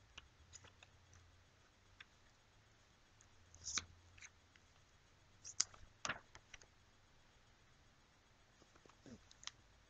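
Scattered faint clicks and taps of a computer mouse and keyboard while looking something up, a few louder ones about four and six seconds in, over quiet room tone.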